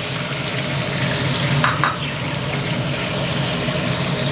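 Two freshly cracked eggs frying in hot oil in a wok alongside pork, a steady sizzle, with two quick knocks of the metal spatula against the wok about one and a half seconds in.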